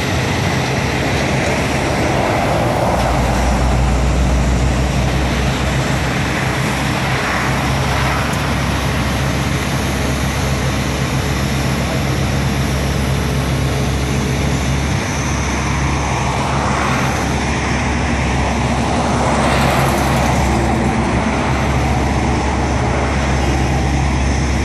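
Steady drone of heavy engines running, with traffic and road noise over it.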